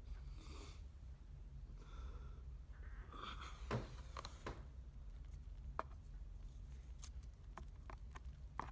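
Faint clicks of wooden chopsticks against a paper takeout box, a handful of separate taps with the loudest a little before halfway, over a low steady hum and a couple of soft breaths.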